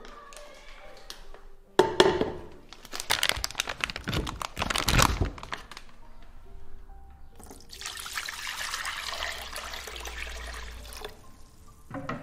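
Clattering knocks for a few seconds, then water poured steadily into a stainless-steel wok over slabs of cured pork to boil them, the pour lasting about three seconds. Light background music plays underneath.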